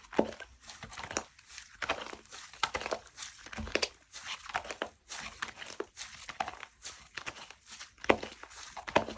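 Soft slime being squished, poked and stretched by hand, making sticky clicks, small pops and crackles that come irregularly, about one or two stronger ones a second.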